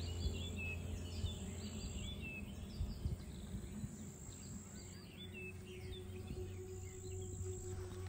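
Small birds chirping in quick, scattered calls over a steady low hum. A soft steady tone comes in about halfway through.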